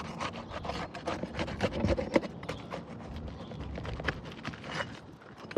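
A metal pry tool scraping and clicking under roofing shingles, working the shingle's nails loose: irregular scrapes with many small knocks.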